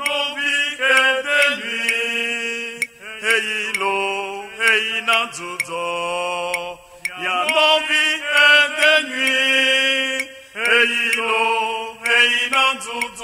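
Ewe borborbor vocal music: voices singing a chant-like melody in phrases of about three to four seconds, with short breaks between them. Faint clicks sound above the voices.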